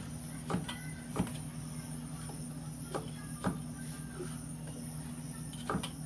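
Crinkle-cut knife slicing through a king oyster mushroom stem and knocking on a wooden cutting board, about five separate cuts at an uneven pace, over a steady low background hum.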